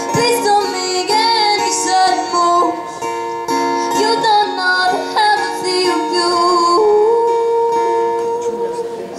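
Live solo performance: a female voice sings a melody over strummed acoustic guitar, ending on a long held note near the end.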